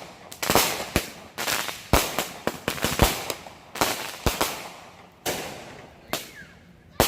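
Consumer fireworks going off in a rapid string of sharp bangs, about two to three a second, each trailing off. The bangs thin out after about four and a half seconds to a few widely spaced ones, the last near the end.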